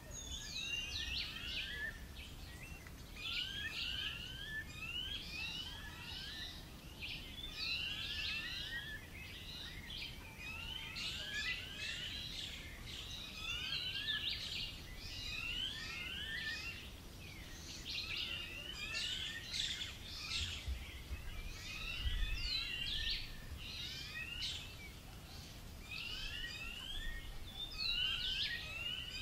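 Birds singing and chirping continuously, many short rising notes repeating and overlapping, with a faint low rumble underneath.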